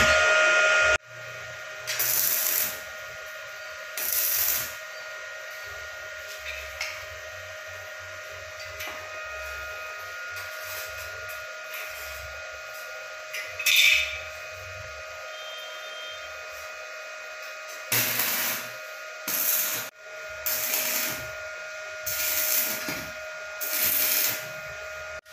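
Stick welding with an E6013 rod on steel angle bar: short bursts of arc crackle as the rod is struck and tack welds are laid, two early on and a run of several in the last seven seconds, over a steady hum.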